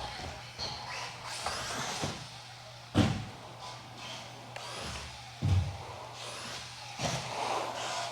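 Associated RC10B6.4 electric buggy running on the track, with rushes of motor and tyre noise and two hard thumps, about three and five and a half seconds in, as it lands or hits something. A steady low hum lies underneath.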